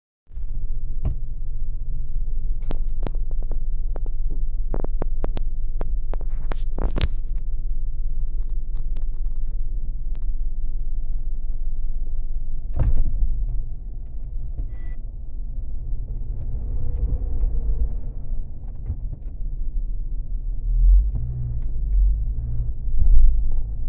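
Car engine running, a steady low rumble heard from inside the cabin, with a rapid series of sharp knocks and taps in the first several seconds and another knock around thirteen seconds in, as baboons climb over the bonnet, windscreen and side mirror. The rumble swells in bursts near the end.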